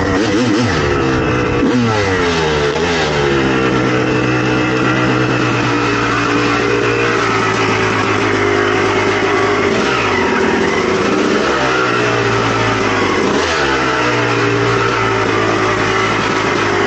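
Suzuki RM250 two-stroke single-cylinder dirt bike engine with an FMF exhaust, being ridden. Its revs drop over the first few seconds, then it holds a steady pitch with a couple of brief dips before cutting off suddenly at the end.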